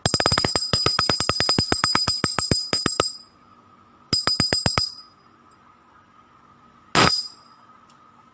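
Maxter Luca 2000SH spinning reel's clicker ratcheting fast, about ten sharp metallic clicks a second with a high ring, for about three seconds. A shorter run of clicks follows about four seconds in, and a single sharp click near seven seconds.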